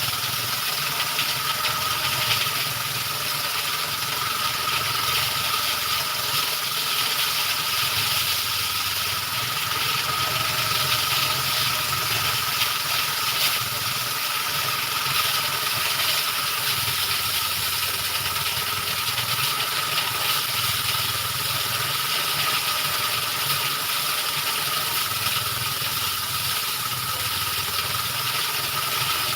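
Rice threshing machine running steadily, a continuous mechanical whir with rattling and a constant high hum.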